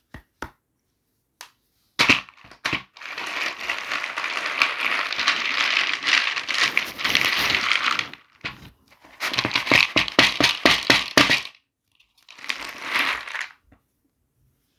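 Plastic toy packaging crinkling and crackling as it is handled and opened, with sharp clicks and snaps in between. A long stretch of crinkling is followed by a quick run of snapping clicks and a last short burst of crinkling.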